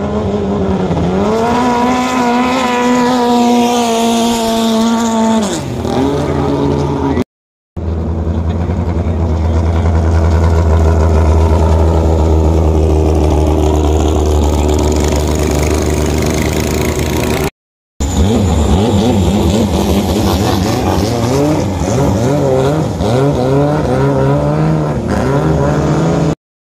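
Racing long-tail boat engines running at high revs as boats pass at speed. The engine pitch holds steady, then drops away a few seconds in, with a deep, loud drone in the middle part. The sound breaks off abruptly a few times.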